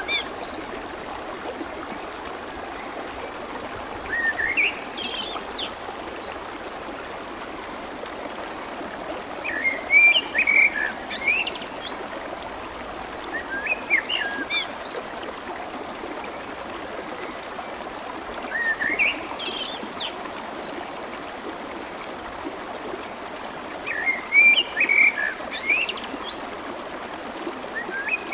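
Clear, fast-flowing water babbling steadily, with a bird singing short chirping phrases about every five seconds over it.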